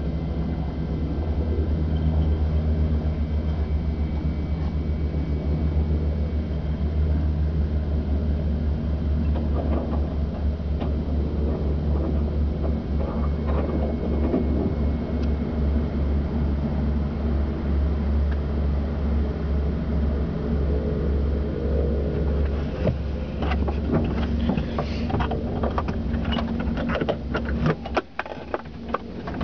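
Steady low drone of an aircraft's engines heard inside the cabin, with a run of clicks and knocks over the last few seconds.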